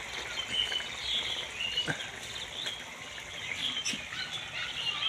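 Small birds chirping, many short quick calls, with a couple of faint clicks.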